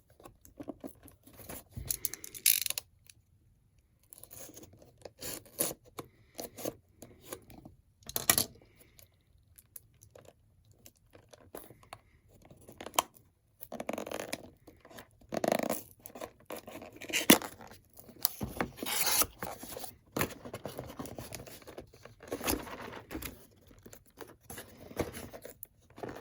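Toy packaging being handled and opened: tearing, scraping and crinkling of cardboard and plastic in irregular bursts.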